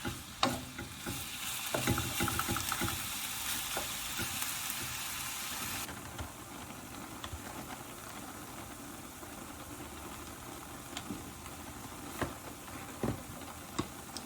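Pork and beef mince sizzling in a pan while being stirred, with scattered knocks and scrapes of the utensil. The sizzle thins out about six seconds in, as the mince gives off water and starts to stew.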